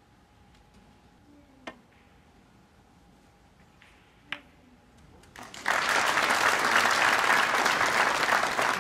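Two sharp snooker-ball clicks, then from about five and a half seconds in an audience applauding a potted red.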